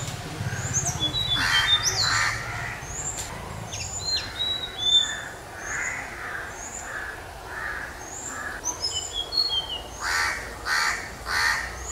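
Tickell's blue flycatcher singing: a scattered run of short, high, thin notes, some slurred downward. Louder harsh caws from another bird break in twice near the start and three times near the end.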